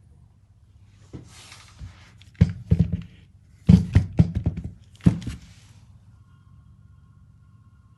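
Handling knocks and thunks: a short rustle, then several clusters of sharp knocks, loudest about four seconds in.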